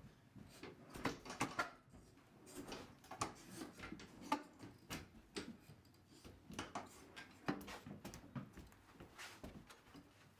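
Faint, irregular knocks and clicks of a fridge strapped to a stair-climbing hand cart as it is worked up the steps.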